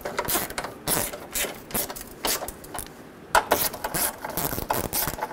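Hand ratchet clicking in quick, irregular strokes as it snugs down the hood latch bolts, with a short pause a little after the middle.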